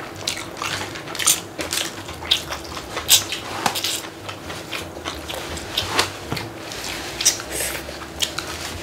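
Close-miked eating sounds: instant ramen noodles slurped and chewed in many short strokes, with chopsticks clicking now and then against bowls.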